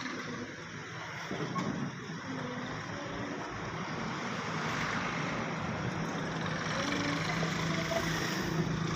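A motor vehicle's engine and road noise, growing gradually louder, with a steady low hum joining in during the second half.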